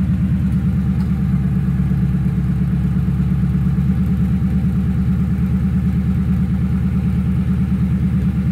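Ford Crown Victoria's 4.6-litre two-valve V8 running at a steady idle through long-tube headers, high-flow cats and an electric exhaust cutout: a loud, even, rapidly pulsing exhaust rumble.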